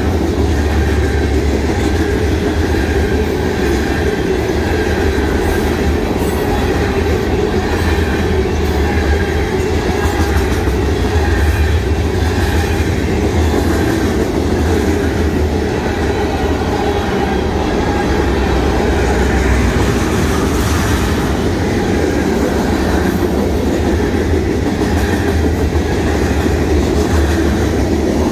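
Freight cars rolling past at close range: a loud, steady rumble of steel wheels on rail with a rhythmic clickety-clack as the trucks cross the rail joints.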